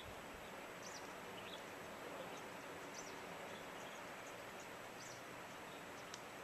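Steady rush of a waterfall, with short high bird chirps scattered through it, about one every second.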